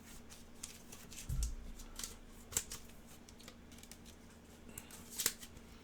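Trading cards being handled and sorted on a table: faint scattered clicks and slides of cards, with a soft low bump about a second in and a sharper click near the end.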